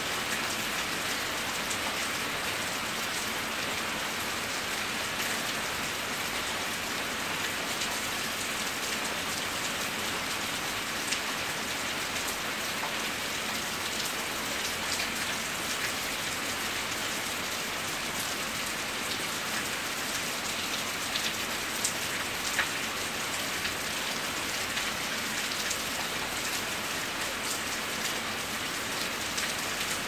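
Steady rain falling on wet pavement: a constant hiss with occasional louder drop ticks.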